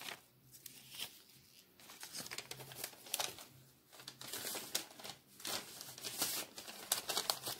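Decorative craft papers rustling and crinkling as they are handled and shifted on a table, in short, irregular rustles.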